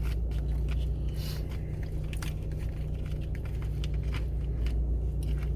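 Someone chewing and biting food close to the microphone, with small crunches and wet squishes, over a steady low hum.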